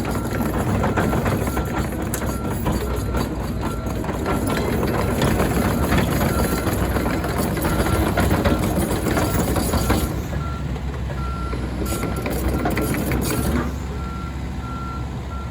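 Komatsu PC138US-11 hydraulic excavator running, with its diesel engine humming and its travel alarm beeping steadily. There is clattering from the machine for the first ten or so seconds, and it grows quieter after that.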